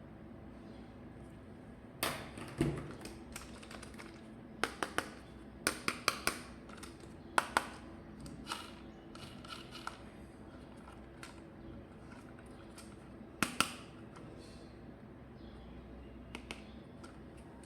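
Hands handling plastic toy parts and packaging during an unboxing: scattered sharp clicks, taps and brief crinkles. They come in clusters, a busy run in the middle and one more near the end.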